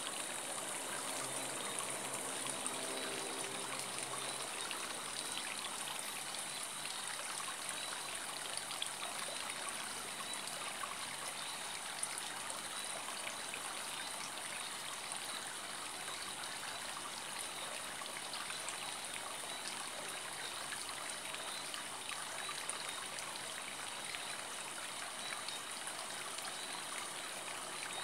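Steady rushing hiss of airflow and engine noise inside the cabin of a Boeing 777-200 airliner in flight, with a thin high whine running through it.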